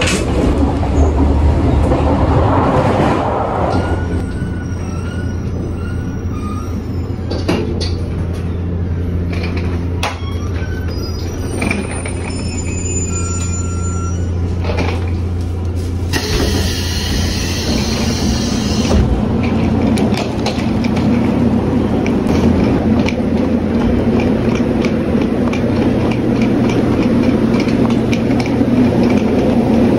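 Sonic limited express electric train heard from inside the vestibule: a steady low running hum with rattle. About two-thirds of the way through there is a brief hiss, after which the hum gives way to the noisier sound of the station platform beside the standing train.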